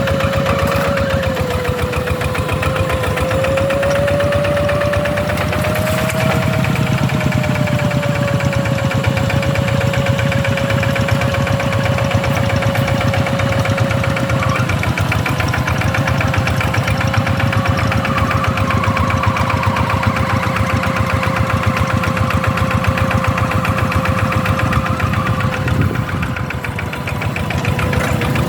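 Single-cylinder diesel engine of a two-wheel hand tractor running steadily with a knocking beat. A steady whining tone sits over it, and the engine eases off briefly near the end.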